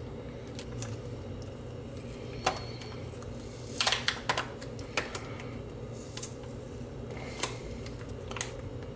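Fingernails picking and peeling at a soaked label on a plastic Fujifilm disposable camera: scattered small clicks and scratches, with a quick cluster about four seconds in. A steady low hum runs underneath.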